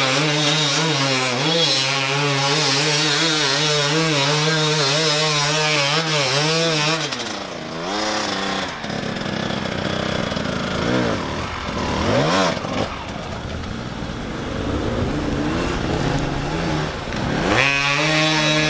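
Enduro dirt bike engines revving hard under load, the pitch wavering up and down as the throttle is worked. The engine note drops away about seven seconds in, rises and falls again around twelve seconds, and another bike revs up sharply near the end.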